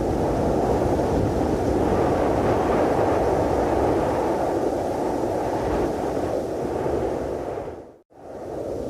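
Cold wind sound effect: a steady rushing wind, heaviest in the low-middle range. About eight seconds in it cuts out sharply for a moment and fades back in a little quieter.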